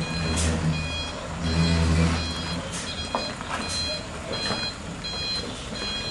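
Heavy Fuso truck's diesel engine revving in low surges as it creeps forward under load, loudest early and again about a second and a half in. A back-up alarm beeps steadily over it, with a few short hisses.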